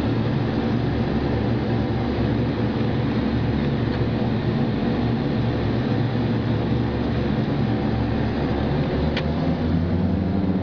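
Cessna Conquest's twin turboprop engines and propellers running, heard inside the cockpit as a loud, steady drone with a deep hum while the aircraft rolls along the runway. A brief click about nine seconds in.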